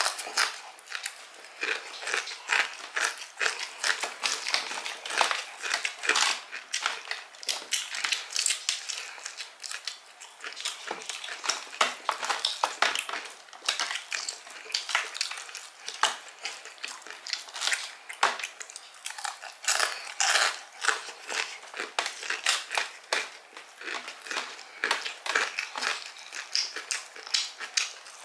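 Close-miked chewing and crunching of crispy fried chicken and its kremes crumbs: a dense, irregular run of crackling crunches.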